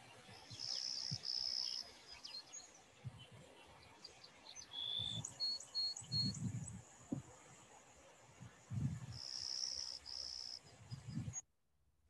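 Clay-colored sparrow singing its buzzy song: two flat, even buzzes about a second in, repeated about eight seconds later. Short high chirps of other birds come between the songs.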